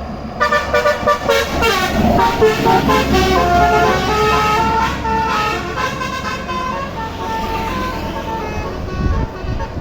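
A bus's multi-tone telolet horn playing a melody, the 'basuri' style: quick short notes at first, then longer held ones, over the steady rumble of the engine.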